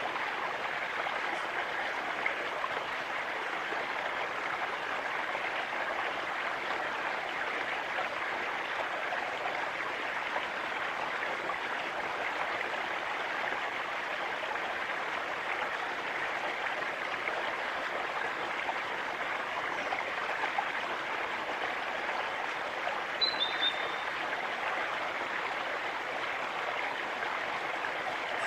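Steady rush of running water. A single short, high chirp of a small bird is heard about two-thirds of the way through.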